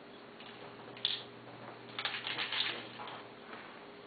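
Faint light clicks and rustles of a small plastic toy being handled, coming in a short cluster a little after halfway, over a low steady hum.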